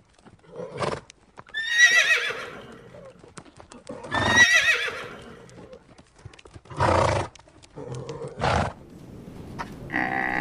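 Horse whinnying twice with a wavering, shaking pitch, with short breathy bursts between the calls and faint hoofbeats.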